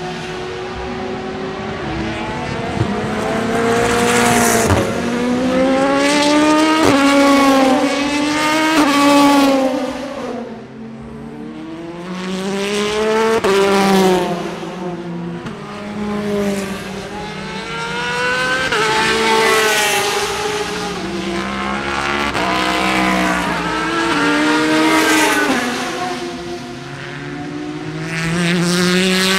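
Endurance race cars passing one after another on the circuit, their engine notes climbing in pitch and dropping back several times as they accelerate, each swelling and fading as it goes by.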